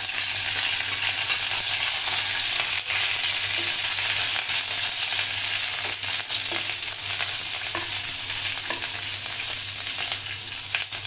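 Green chillies and curry leaves sizzling steadily in hot oil in a kadhai, with crackling mustard seeds: an Indian tempering (phodni/tadka) being fried. A steel spoon stirs through it, with a few light scrapes and clicks.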